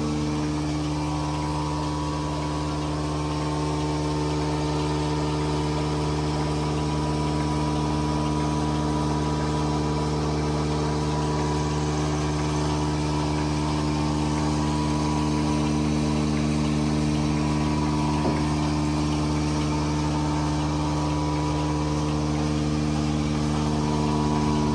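A motor running steadily at constant speed, an even mechanical hum.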